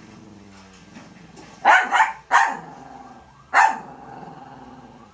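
Small dog growling low for about a second and a half, then barking four times in sharp barks, three close together and one more a second later. It is a pet dog's play-soliciting growl and bark.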